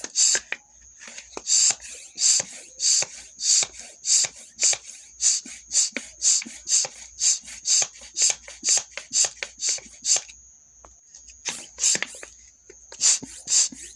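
Bicycle pump being worked in quick strokes, each stroke a short sharp hiss of air, a little under two a second. In two brief pauses a thin, steady high whistle of air lingers.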